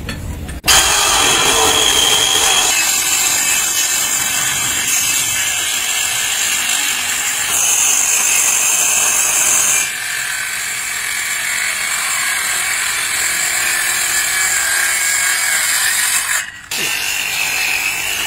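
Handheld electric circular saw cutting across a thick wooden beam. It starts abruptly about a second in and runs steadily, with a brief break near the end before it carries on.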